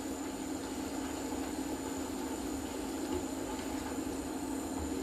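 Steady hum of a portable induction hob running under a pan of simmering cream sauce, with a thin high whine above it.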